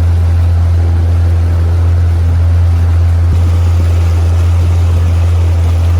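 Boat's outboard motor running steadily while underway: a loud, unbroken low hum with a rushing noise over it.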